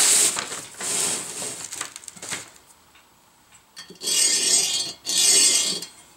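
A pen scratching along kraft paper as it traces around a cast iron Dutch oven, with the paper rustling and the pan shifting on it. About a second in the sound thins to scattered clicks, and near the end come two longer scratching strokes.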